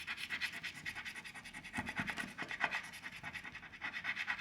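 Scratch-off lottery ticket being scratched rapidly, a fast run of short scraping strokes as the latex coating is rubbed off the card.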